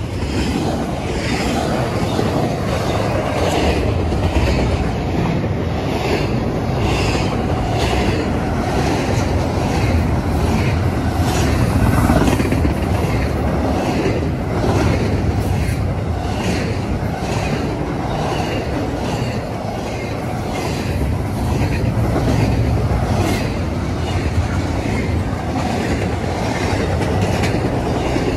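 Double-stack intermodal freight cars rolling past close by: a steady low rumble of steel wheels on rail with a regular clickety-clack, about two clicks a second.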